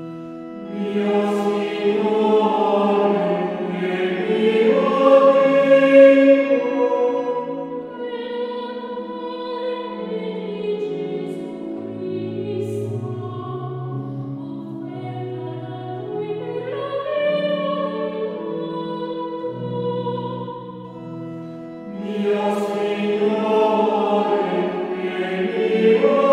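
Choir singing a sacred acclamation in Italian, with several voice parts sounding at once in sustained notes. Lower voices come forward in the middle, and the full choir swells louder near the end.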